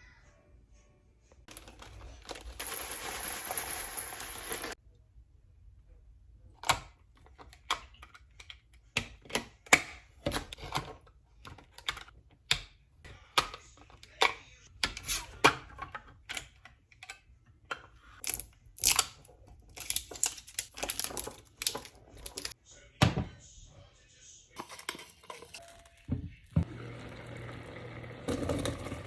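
Kitchen preparation sounds: a few seconds of steady hiss, then a long run of irregular sharp knocks and clicks from utensils, containers and cans being handled. Near the end a steady noise with a low hum sets in.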